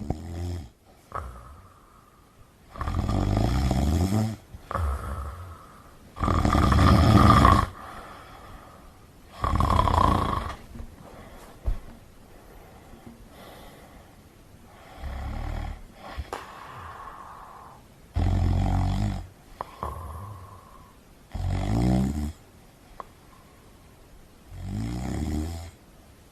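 A sleeping cat snoring: a rough, rasping snore on each breath, repeating about every three seconds with one longer pause midway, with fainter breaths between the loud snores.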